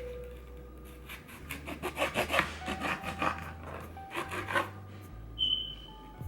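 Kitchen knife cutting sliced red bell pepper on a cutting board: a run of quick strokes, bunched between about one and a half and five seconds in.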